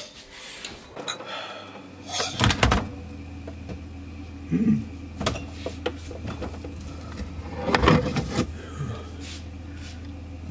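Refrigerator door pulled open about two seconds in with a loud knock, followed by a low steady hum. Further knocks and clatters of things being handled follow, the loudest about eight seconds in.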